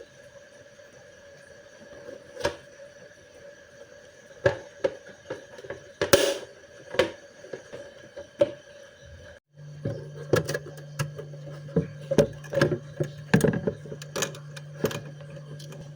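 Irregular clicks and knocks as the broken plastic freezer door of a refrigerator is handled and fitted, over a steady hum. The knocks come sparsely at first, then quickly one after another in the second half.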